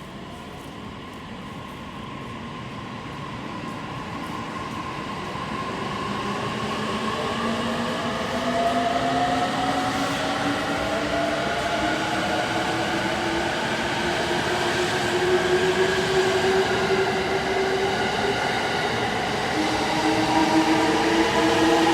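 E657 series electric train pulling away and accelerating: the inverter-driven traction motors give several whining tones that rise steadily in pitch, over a running rumble that grows louder as it speeds up.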